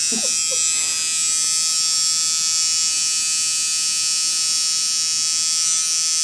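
Tattoo machine buzzing steadily with the needle running in skin, as the artist draws the outline of a small tattoo on a foot.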